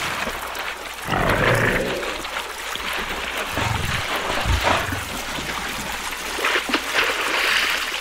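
Crocodile growling: a series of low rumbling calls, several in a row, over a steady hiss of water.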